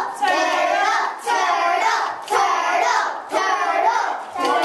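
A group of children's voices cheering together in a chant, about one call a second.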